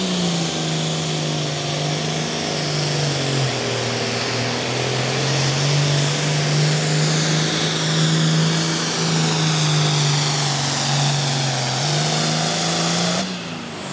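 Turbocharged 466 cubic inch diesel engine of a Pro Farm pulling tractor running flat out under load while dragging the sled, with a high turbo whine over the engine note, which dips twice and recovers. Near the end the engine cuts off and the turbo whine falls away as it spools down.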